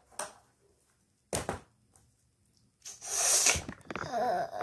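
Two short knocks from handling, then a loud breathy rush, and a girl's wordless voice with a rising and falling pitch near the end.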